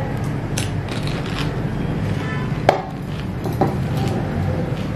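Crisp pani puri (golgappa) being crunched and chewed with the mouth full: a few sharp crunches, the loudest about halfway through, among quieter wet chewing. A steady low hum runs underneath.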